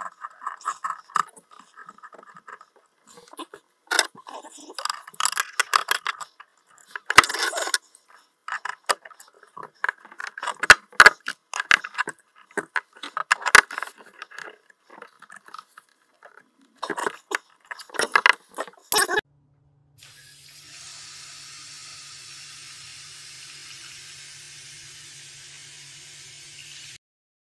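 Metal clinks, taps and scrapes from a faucet-adapter ball valve and a wrench as the adapter is screwed onto the under-sink water supply line and tightened, for about nineteen seconds. Then a steady hiss with a faint low hum for about seven seconds, which cuts off suddenly.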